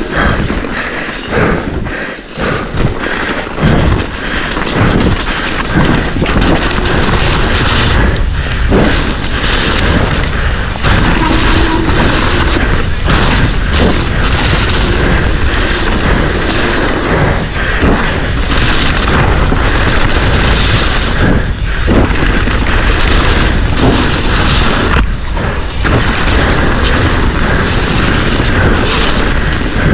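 Mountain bike descending a rough trail at race speed, heard through a helmet- or bike-mounted action camera: a loud, continuous rush of wind and tyre noise, with frequent knocks and rattles as the bike hits bumps.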